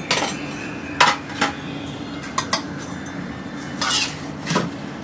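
Steel spoon clinking and scraping against stainless steel dishes. There are about half a dozen sharp clinks spread out, and a longer scrape a little before four seconds in.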